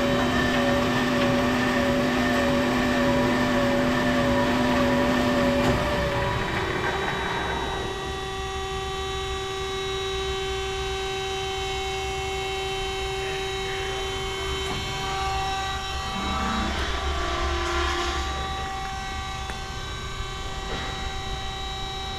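Peerless VB-1820XL vertical band saw running, a steady machine hum with several constant tones from its three-phase motor and blade drive. About six seconds in, some of the tones stop and the sound gets quieter, then it runs on steadily.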